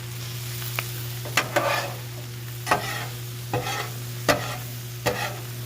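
Chopped Brussels sprouts sizzling on a steel flat-top griddle, while a metal spatula scrapes and clacks against the cooking surface about seven times, turning them over.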